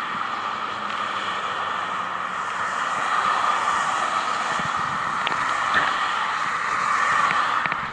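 Road traffic on a bridge, a steady tyre-and-engine noise that swells as cars pass about three seconds in and again near the end, with wind on the microphone.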